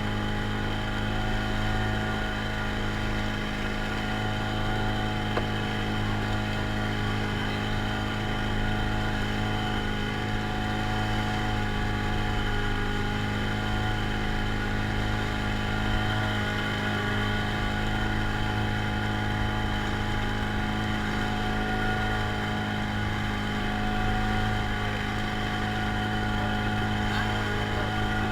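Small boat engine of a traditional jukung running steadily at constant speed, a steady drone.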